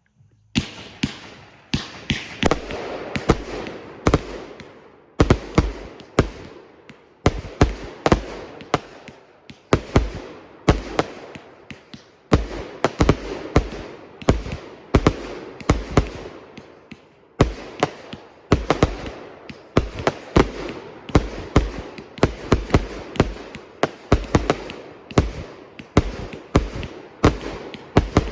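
A 100-shot 1.4g firework cake firing in rapid succession, starting about half a second in: shell after shell launches and bursts in a sharp tuono report, about two a second, each bang trailing off in an echo.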